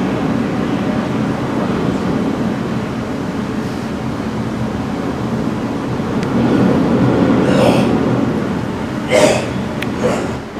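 Low, steady rumbling drone from the stage production's soundscape. It swells about six seconds in, and a few short, sharp louder sounds come near the end.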